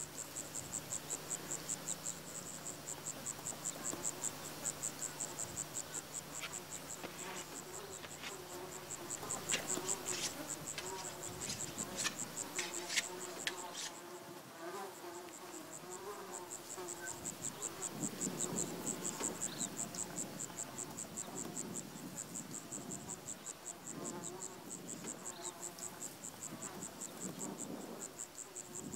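Insects chirping in a rapid, even pulse at a high pitch, fading out for a few seconds in the middle, with a few sharp clicks near the middle.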